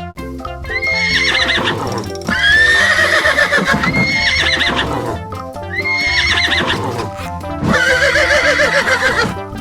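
Horse whinnying several times in long, shaking calls, over background music with a steady beat.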